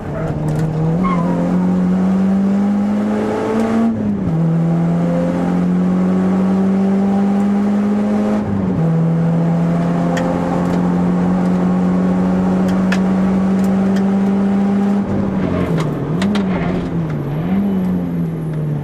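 Renault Clio RS's 2.0-litre four-cylinder engine heard from inside the cabin, pulling hard on track: the engine note climbs steadily and drops sharply at upshifts about four and nine seconds in, then the revs rise and fall a few times near the end as the throttle is worked through a corner.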